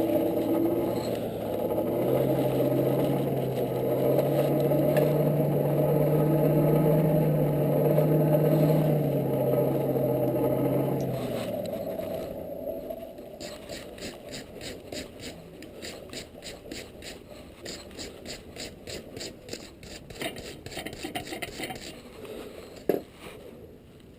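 A blacksmith's forge running with a steady hum, which stops about eleven seconds in. After that come quieter, quick, even scraping strokes on steel, about three a second.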